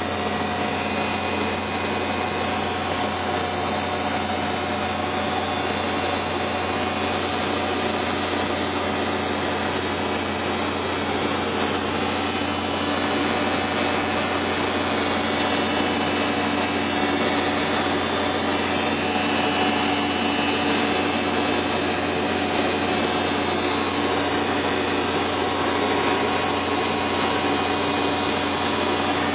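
Loud, steady drone of a squid-fishing vessel's onboard machinery, a constant low hum under an even hiss of running engine and fans.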